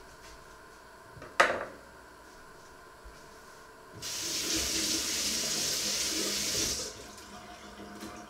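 Kitchen tap running for about three seconds, then turned off. Earlier, a single sharp knock with a short ringing tail is the loudest sound.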